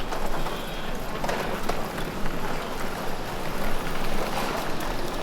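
Steady busy background noise with indistinct voices mixed in.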